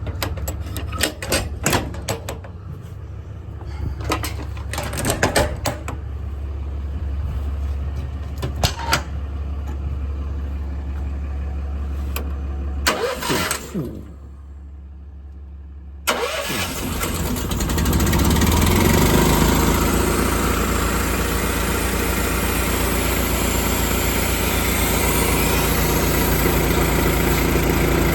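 Metal toolbox doors and latches clicking and knocking over a low steady hum. About sixteen seconds in, a small gasoline engine starts and keeps running steadily: the service body's gas-powered air compressor.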